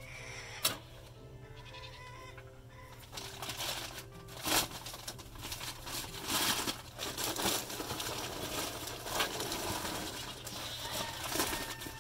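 Goats bleating, with a loud rustling, scraping noise and scattered knocks from about three seconds in.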